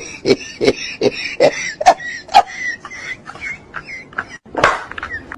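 A person's voice making a quick run of short breathy bursts, about two or three a second, with one louder breathy burst near the end.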